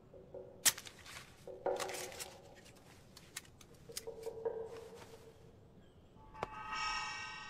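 Paper-wrapped coin packets picked up off a wooden tray: a sharp clink about a second in, then soft rustles and light ticks. About six seconds in, a bell-like ringing tone with many overtones starts and rings on.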